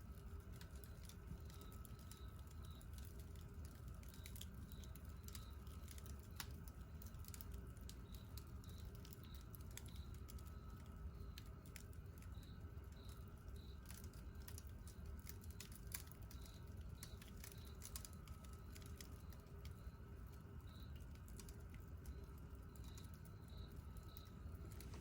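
Wood campfire crackling faintly, with scattered small pops and snaps over a low steady rumble.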